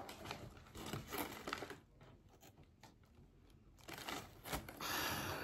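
Packaging being handled and torn open by hand: scattered rustles and small clicks, quieter in the middle, then a louder burst of crinkling near the end.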